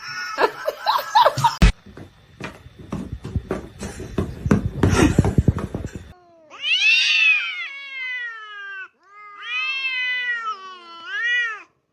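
A cat giving two long, drawn-out meows in the second half, the second ending with a rise in pitch. Before them come a run of clicks and rustling noises.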